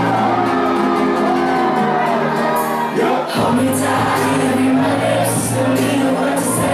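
Electronic dance music from a live DJ set, with a sung vocal melody over held chords and a heavy bass. The bass cuts out briefly about three seconds in, then comes back.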